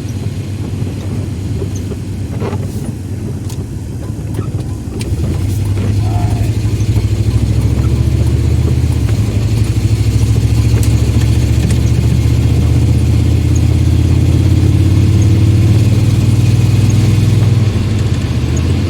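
Car interior noise while driving: a steady low rumble of engine and tyres on the road that grows louder about five seconds in and then holds.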